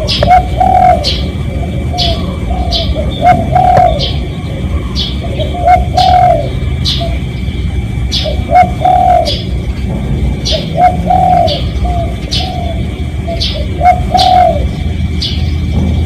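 Spotted dove cooing: repeated phrases of two or three low coos every couple of seconds. Over it another small bird gives short, sharp chirps about twice a second.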